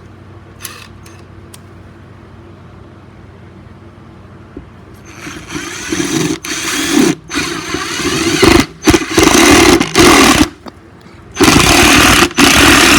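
Ryobi cordless impact driver driving a large screw into hard wood, hammering in several stop-start bursts from about five seconds in, with the longest runs near the end.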